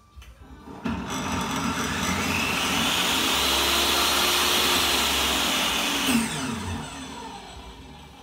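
DeWALT DWE7492 table saw's universal motor, fitted with a soft start, switched on about a second in and coming up to speed gradually over a couple of seconds. It runs with a steady whine, then is switched off about six seconds in, and its pitch falls as the blade spins down.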